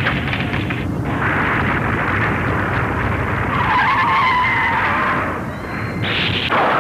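Earthquake sound effects from an old film soundtrack: a loud, dense rumbling and crashing of collapsing debris, with a wavering high-pitched cry over it for about a second and a half in the middle and a short crash near the end.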